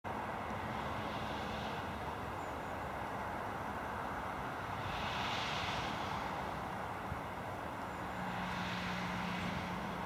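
Steady distant engine noise from traffic or aircraft that swells and fades about three times, with a low steady hum near the start and again near the end. No bird calls stand out.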